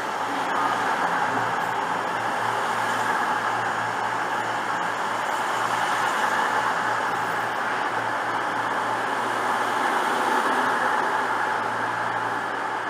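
CrossCountry Voyager diesel multiple unit moving slowly alongside the platform, its underfloor diesel engines giving a steady drone over a rushing hiss.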